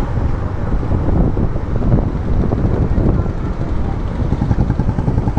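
Wind rushing over the microphone of a moving motorcycle, with the engine running beneath it.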